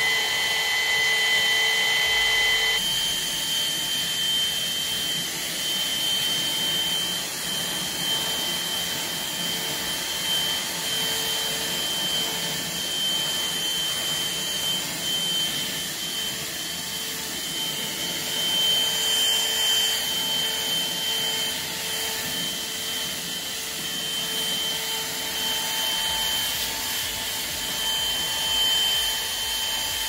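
Midea VSB16B cordless stick vacuum cleaner running: a steady high motor whine over the rush of air. About three seconds in, the whine changes to a different pitch and then holds steady.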